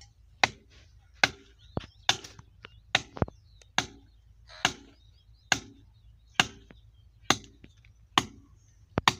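Hammer blows on the metal fitting of a water pump, struck one-handed in a steady rhythm a little under a second apart, each a sharp ringing knock.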